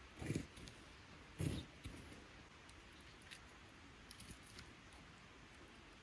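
A metal poker stirring the ash of a dead campfire, with two dull thumps about a second apart as it jabs into the ashes and coals, then a few faint clicks of twigs and kindling being laid on the coals.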